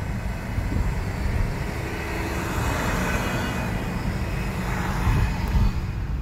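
Steady low rumble of a car driving slowly, heard from inside the cabin. Near the middle a broad swell of noise builds and fades as a city bus passes close alongside.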